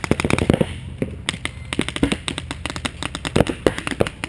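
Paintball markers firing: rapid strings of sharp pops, several guns overlapping, keeping up throughout.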